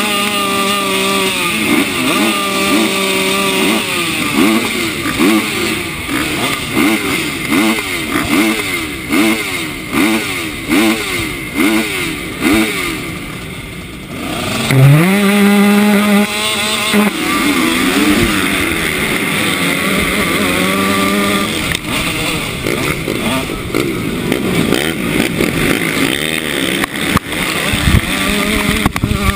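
Motocross bikes on the starting line: the nearest engine is revved in quick repeated blips. About halfway through, the engines jump to high revs at once as the start gate drops, and the pack races off together.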